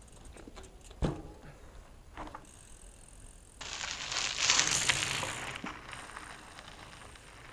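Mountain bike tyres crunching over a gravel path as the bike rides close past, swelling and then fading as it moves away. Earlier, a single sharp thump about a second in and a lighter knock shortly after.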